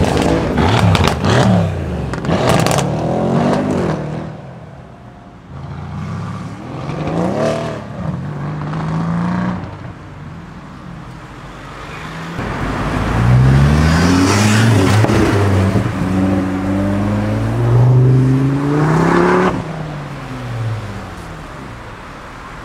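Performance cars accelerating hard one after another, each engine rising in pitch through several upshifts. Sharp exhaust crackles come in the first few seconds, and the longest, loudest run through the gears comes in the second half.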